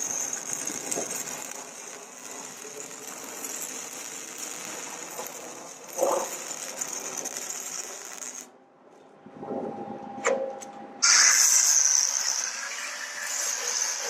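Power grinder grinding down fresh welds on a metal lock box, a steady high-pitched grinding hiss. It stops about eight seconds in, a couple of knocks follow, and it starts again louder about three seconds later.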